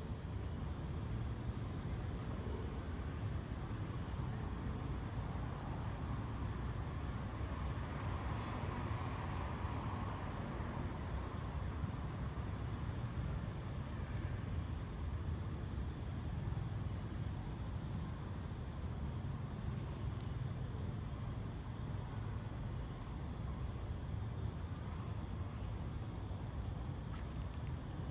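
A cricket trilling steadily, a high, finely pulsing note that stops briefly near the end, over a low, steady background rumble.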